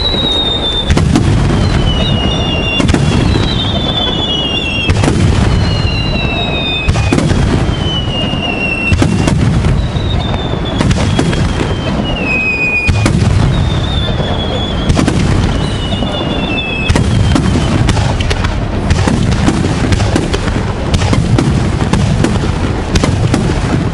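Aerial fireworks bursting in quick succession, a dense, continuous barrage of booms and crackles. High whistles falling in pitch recur every couple of seconds through the first two thirds.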